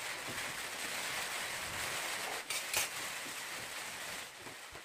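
Steady hiss of rain falling, with two sharp clicks of a spoon against a metal bowl a little past halfway.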